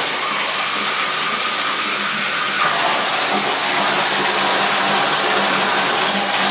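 Full stream of water running from a bathtub spout and splashing into the tub, the Moen single-lever valve opened to hot and cold to flush the plumbing through the tub after the cartridge was replaced. A steady rush, growing a little fuller a little under three seconds in.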